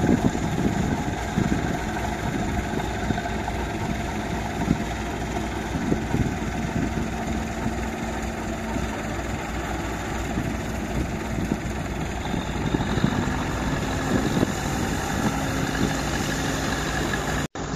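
Diesel engines of tracked paddy tractors running steadily in a flooded rice field, with a brief dropout near the end.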